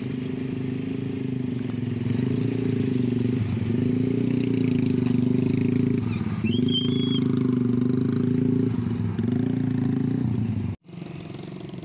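Motorcycle engine running close by, its pitch dipping and climbing again every couple of seconds like gear changes. A brief high chirp about two-thirds of the way through, and the sound cuts out abruptly near the end.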